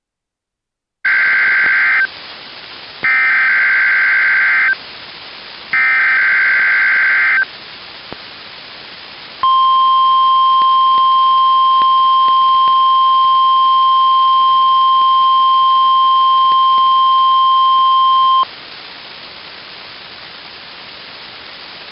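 NOAA Weather Radio Emergency Alert System signal for a Required Weekly Test, fed directly from the radio's headphone jack. After about a second of silence come three short warbling bursts of SAME digital header data. Then a steady 1050 Hz warning alarm tone sounds for about nine seconds and cuts off, leaving the radio's hiss.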